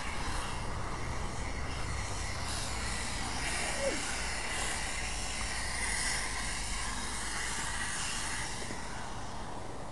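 Steam cleaner wand with a brush head hissing as it jets steam onto car carpet and upholstery: a steady hiss that grows fuller in the middle, over a low rumble.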